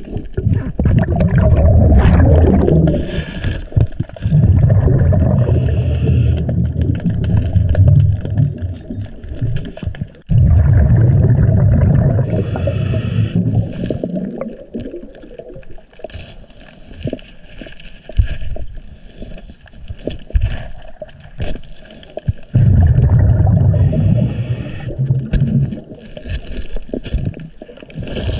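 A scuba diver breathing through a regulator underwater: four long rumbling bursts of exhaled bubbles, with a short hiss of inhaling between them. Scattered small clicks and knocks run through it.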